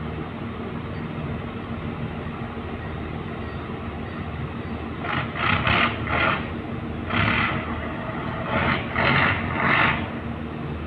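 Fishing boat diesel engines running with a steady low hum. About halfway through, a string of short, harsh noise bursts breaks in over the hum, each under a second long.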